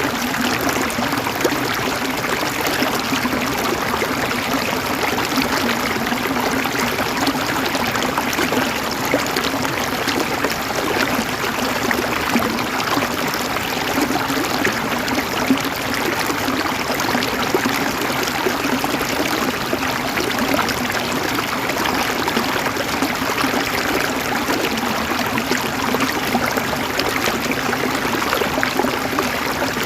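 River water flowing and gurgling steadily, an even rush with no breaks.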